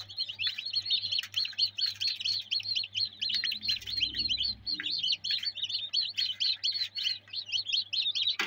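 Many newly hatched chicks peeping nonstop in an incubator: a dense chorus of short, high, downward-sliding peeps over a low steady hum.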